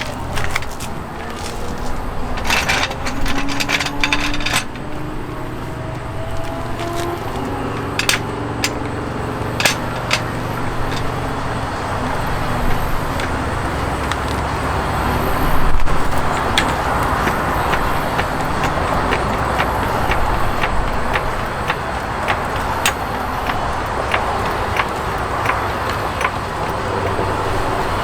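Motor vehicle running, a steady low rumble with road noise, with scattered sharp clicks.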